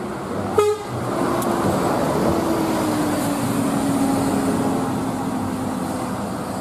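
Intercity coach bus engine running as the bus drives past and pulls away, its engine note sinking slowly, with road noise. There is a brief loud blip about half a second in.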